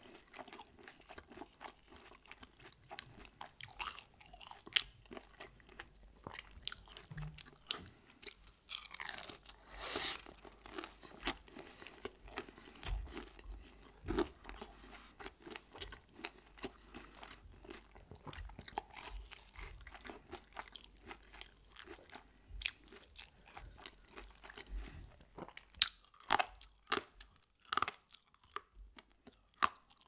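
Close-miked chewing of crispy fried food, with a steady run of short, sharp crunches and a cluster of louder crunches near the end.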